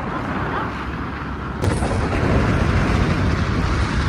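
Rumble and road noise of a moving vehicle on the road. A single sharp click comes about a second and a half in, after which the rumble grows a little louder.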